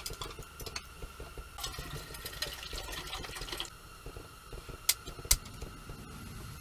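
Water poured into a small pot for about two seconds, then two sharp clicks as a camp stove is lit for coffee.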